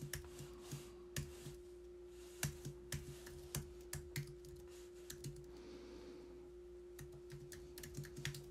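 Computer keyboard keys typed in short irregular runs of light clicks, sparser for a second or so a little past the middle, over a faint steady hum.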